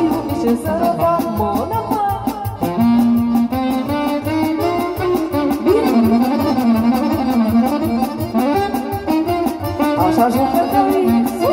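Live band playing a fast instrumental folk dance tune over a steady, regular beat.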